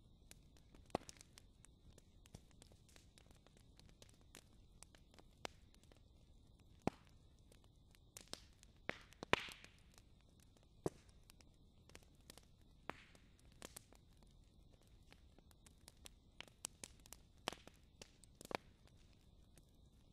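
Wood fire crackling: irregular sharp pops and snaps over a faint low rustle, with one longer, louder burst about nine seconds in.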